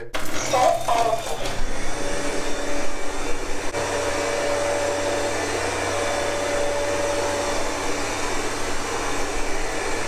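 Ultenic TS1 robot vacuum starting up and running: after a short pitched sound about half a second in, a steady whirr of its suction fan sets in, with a faint steady tone in it.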